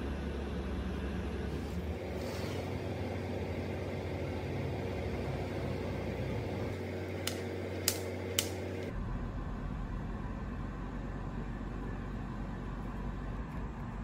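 A steady low hum with three short, sharp clicks about halfway through.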